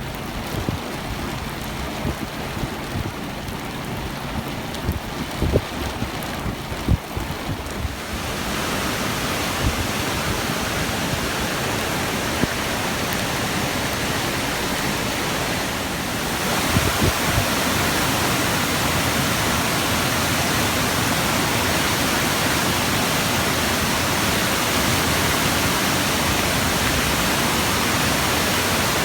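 Typhoon-swollen river running as a muddy torrent: a loud, steady roar of rushing floodwater. It steps up in loudness about eight seconds in and again about halfway through. A few low thumps come in the first several seconds.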